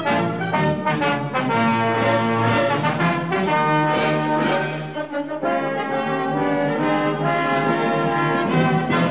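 Instrumental background music led by brass instruments, with a brief dip about five seconds in.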